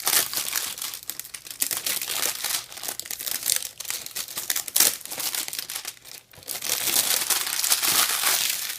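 Packaging of a sealed headset box crinkling and tearing as it is unwrapped by hand, in dense irregular crackles with a short lull about six seconds in.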